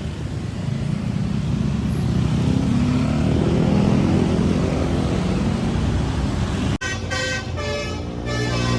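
A passing coach's diesel engine running, its pitch rising in the middle. About seven seconds in, after an abrupt cut, a multi-tone basuri "telolet" bus horn plays a melody of short notes.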